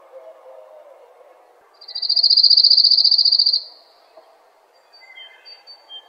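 Woodland nature-sound ringtone: a loud, fast-pulsing high-pitched trill lasting about two seconds, starting a little under two seconds in, then faint short high chirps of birdsong near the end.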